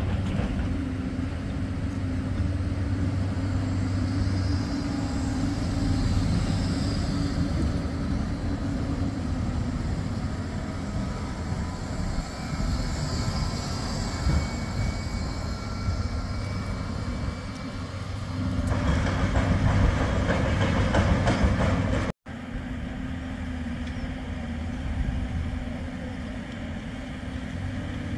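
A Bombardier Flexity 2 tram passing slowly at close range: a steady low rumble with a faint high whine. The rumble swells and grows louder as the tram goes by, then drops out suddenly at a cut, leaving a quieter steady low rumble.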